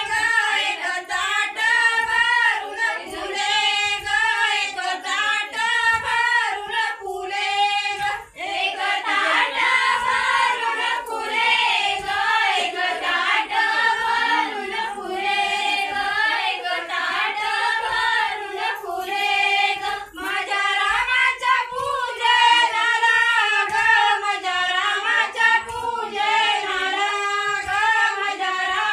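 A group of women and girls singing a traditional Ganpati dance song together, with one brief break about eight seconds in.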